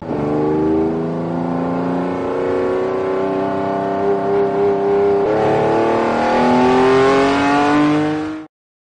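Car engine accelerating hard, its pitch climbing slowly, then dropping once at a gear change about five seconds in and climbing again, before cutting off abruptly near the end.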